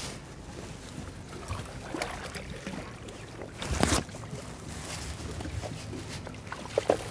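Wind on the microphone and water around a small boat, with scattered small clicks and handling noise. A loud bump or knock comes about four seconds in.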